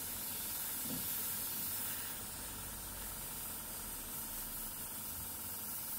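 Cheap 0.3 mm pistol-grip airbrush, a knock-off of the Iwata Revolution, hissing steadily as compressed air and paint spray from its nozzle with the trigger held down.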